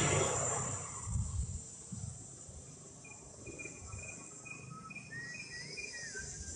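Tropical forest ambience: a steady high insect drone, with a short chirping note repeated about twice a second from midway and a brief wavering whistled call near the end.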